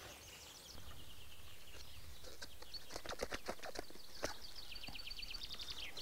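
Small birds singing, with trills and a fast run of repeated chirps near the end. A few sharp clicks and ticks in the middle come from a leather knife sheath being hand-stitched with needle and thread.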